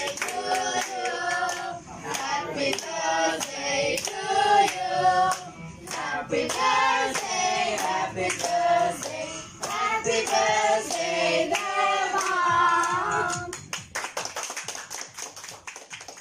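A group of people singing a birthday song together in a small room, clapping along in time. The singing stops about two and a half seconds before the end, and the hand-clapping goes on, fading out.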